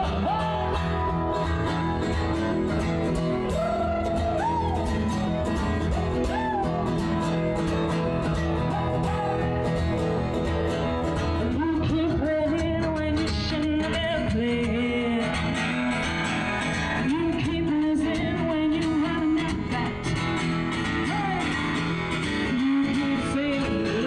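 Music: a song with strummed acoustic guitar and a singing voice.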